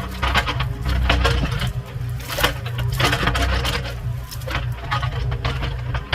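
Mini excavator engine running steadily while branches and brush crack and snap against the machine, with many sharp cracks at irregular intervals.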